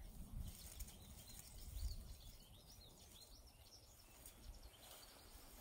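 Faint outdoor ambience: a low rumble, louder about two seconds in, with a few faint bird chirps near the middle.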